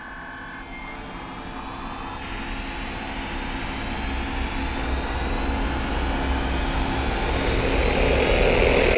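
A rising whoosh sound effect that swells steadily louder, with a low rumble and a slowly climbing pitch, then cuts off suddenly at the end.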